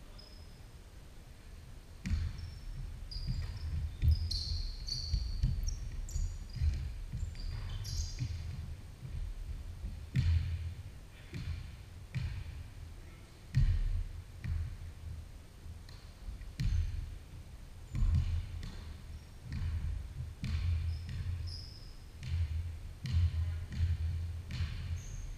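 Basketball bouncing on a hardwood gym floor in irregular thumps, with short high sneaker squeaks and footfalls from players moving on the court; the activity picks up about two seconds in.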